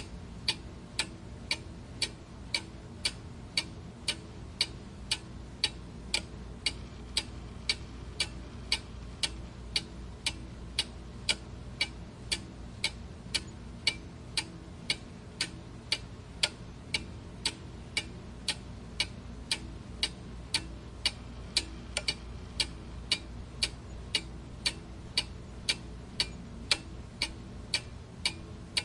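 Clock ticking steadily and evenly, about two ticks a second.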